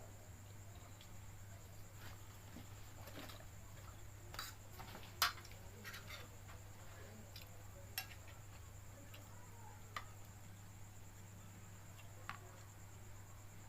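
Eating sounds at a meal of fried noodles: a handful of soft clicks and smacks scattered through, the sharpest about five seconds in, over a faint steady hum.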